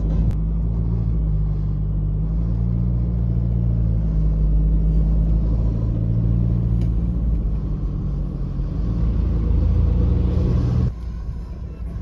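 Low rumble of a pickup's engine and tyres heard from inside the cab while driving, with a boomy, echoing quality inside a road tunnel. The rumble drops off suddenly about eleven seconds in.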